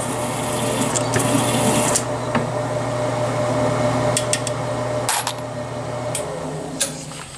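Small electric motor running with a steady hum, with scattered light metallic clicks and scrapes; the hum drops lower about six seconds in.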